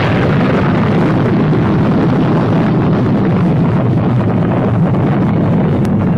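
Explosion sound effect: a loud, steady, low rumble that holds without fading.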